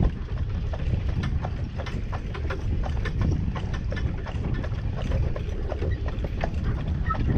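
Horse's hooves clip-clopping on a paved lane as it pulls a jaunting car, with irregular sharp knocks over a steady low rumble from the moving car.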